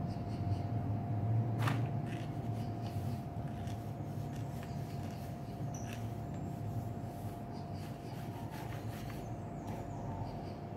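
Faint, irregular scratches of a graphite pencil drawing on paper, over a steady low hum with a thin, high, steady tone.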